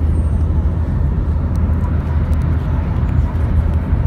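Steady low rumble of a car's engine and tyre noise heard from inside the cabin while driving at speed.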